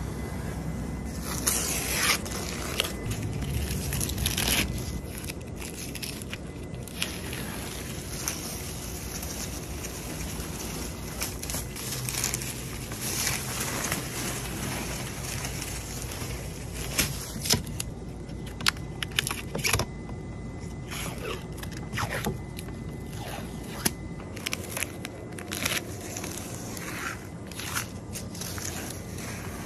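Masking tape and plastic masking film being peeled and pulled off a freshly painted car, giving repeated crackling and tearing with short sharp snaps throughout.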